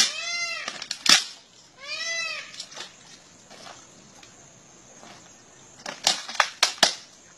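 A crocodile's jaws crunching its prey: a sharp crack about a second in, then four quick cracks near the end. Early on, two high, drawn-out cries with an arched rise and fall are also heard.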